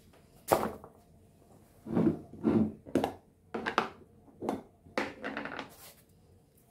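A series of about seven knocks and clatters of kitchen things being handled and set down, some ringing briefly, loudest about half a second in and around two to three seconds in.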